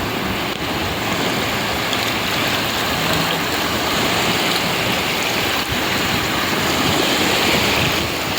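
Sea surf washing on the shore: a steady rush of waves.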